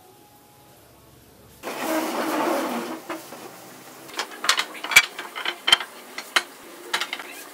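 A loud rushing noise for about a second, then pine boards knocking and clacking against each other and the wooden table frame as they are lifted and laid down, a dozen or so sharp irregular knocks.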